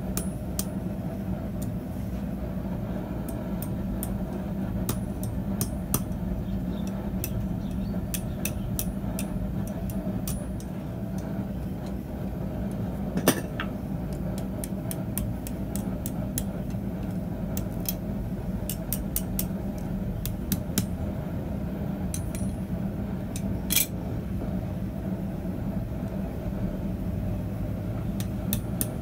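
Scattered light metal taps and clinks as a red-hot mild-steel coil is worked on an anvil with hammer, tongs and a bending bar, over a steady low drone. Two sharper metal strikes stand out, about 13 seconds in and about two-thirds of the way through.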